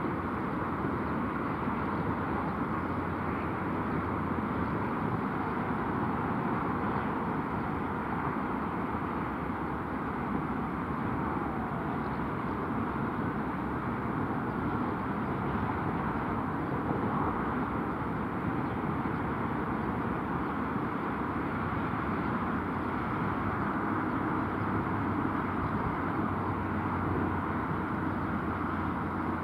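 Airbus A330 airliner's jet engines running steadily as it taxis, a continuous even noise with no spool-up.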